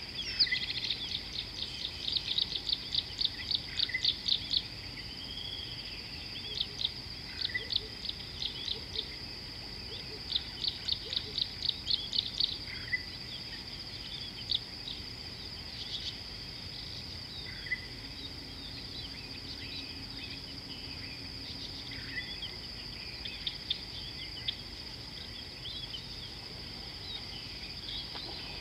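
Wild birds calling over a steady high-pitched insect drone: runs of rapid repeated chirps, about six a second, near the start and again around ten seconds in, and a short falling whistle every four or five seconds.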